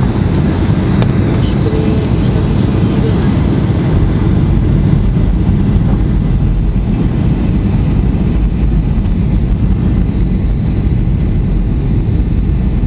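Steady low rumble of jet airliner cabin noise, engines and rushing air, heard inside the cabin during the descent to land.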